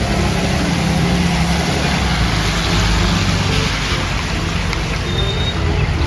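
School bus driving slowly by, its engine running under a steady hiss of tyres on wet pavement.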